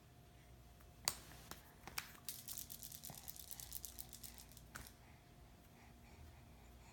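A sharp click, two more clicks, then a quick rattle of small clicks for about two seconds and one last click, faint, over a steady low hum.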